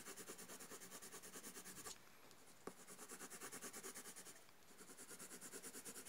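Green colour pencil shading on drawing paper: quick back-and-forth strokes, about six a second, making a faint scratching, with two short pauses.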